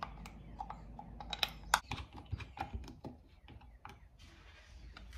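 Light, irregular clicks and taps of a metal bolt, washer and screwdriver being worked through the bottom of a hard plastic cup holder, thinning out after about four seconds.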